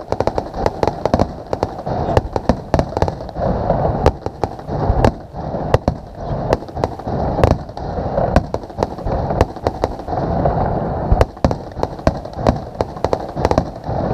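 Fireworks going off in a dense, irregular barrage: many sharp bangs and cracks in quick succession, several per second at times, with no pause.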